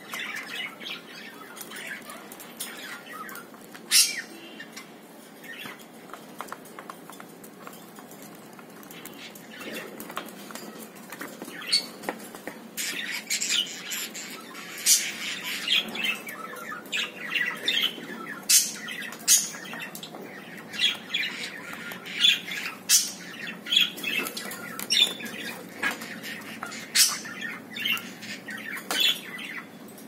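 Cockatiels bathing in a shallow tub of water: splashing and wing-flapping with short squawks. The sharp splashes and flaps are sparse at first and come in quick succession through the second half.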